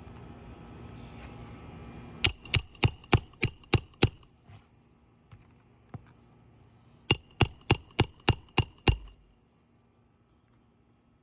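Roofing hammer driving nails into a shingle on a roof: two runs of seven quick, ringing blows, about three to four a second, with a pause of a few seconds between them.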